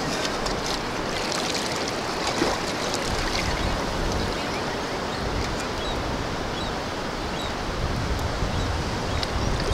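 Steady wash and slosh of shallow surf water around the legs and a long-handled sand scoop being worked in it, with a few light clicks.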